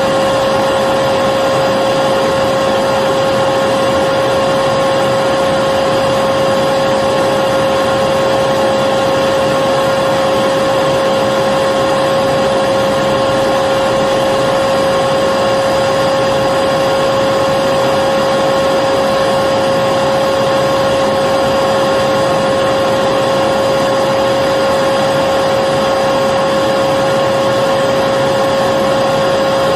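Electric vacuum cleaner running continuously at a steady speed: a constant whine over a rushing noise of air.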